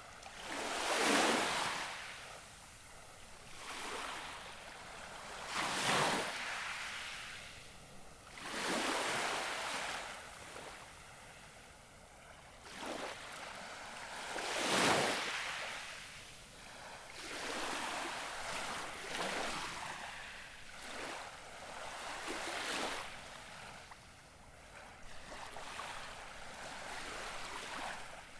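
Gentle waves lapping on the shore: one soft wash after another swells and falls away every few seconds, the biggest about a second in, around six seconds in and about halfway through.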